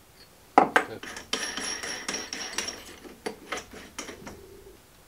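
Metal clinks and a scraping, rattling stretch as a twist drill bit is handled and clamped in the chuck of a magnetic drill press. A few sharp clicks come first, then a second or so of scraping rattle, then more single clicks.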